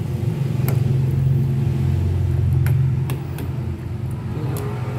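Metal ladle stirring soup in a stainless steel pot, knocking against the pot about four times, over a steady low rumble.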